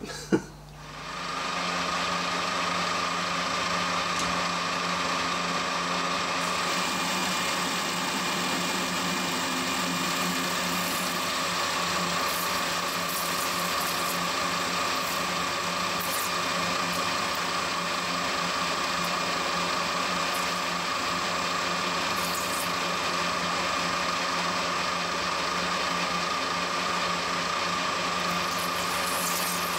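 Metal lathe starting up about a second in, then running with a steady hum and whine while a carbide parting tool cuts off a cold-rolled steel part under flood coolant.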